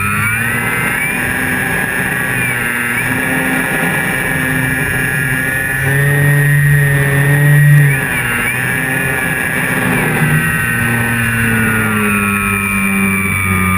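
Electric motor and propeller of a Flyzone Calypso radio-controlled plane, heard from a camera under its wing: a steady whine that rises in pitch as the throttle opens at the start, dips briefly about eight seconds in, and drops near the end, over wind noise.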